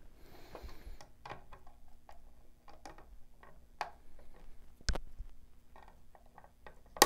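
Small plastic clicks and taps of hands working the front cover off a Sensus 700 GM SmartPoint meter radio by pressing its side tabs, with one sharper click about five seconds in and another at the very end.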